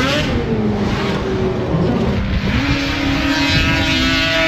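Racing snowmobile engines at high revs during a drag run. The pitch rises and then drops near the start, then jumps higher about halfway through and holds.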